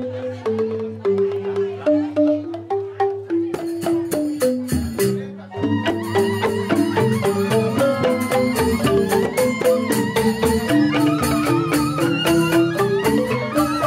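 Balinese joged bumbung gamelan: bamboo tube xylophones (grantang) playing a fast interlocking melody with percussion. About five seconds in the music briefly drops away, then comes back fuller, with a bamboo flute (suling) wavering above the xylophones.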